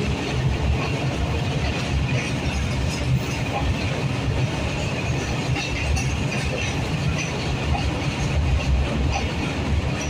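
Heavy freight box wagons rolling past close by at speed: a steady low rumble of steel wheels on the rails.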